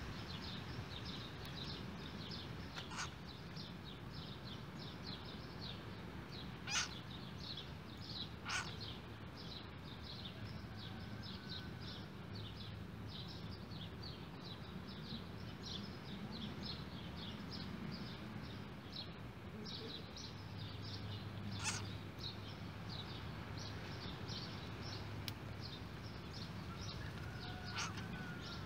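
A steady chorus of short, high chirps, several a second, with a few louder, sharper calls standing out over it: small animals calling.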